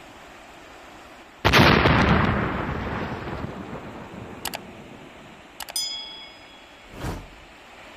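Subscribe-button animation sound effects: a loud whoosh about a second and a half in that fades over about two seconds, then two mouse clicks, a short bell chime ringing after the second click, and a brief whoosh near the end. Underneath, the steady rush of a muddy stream.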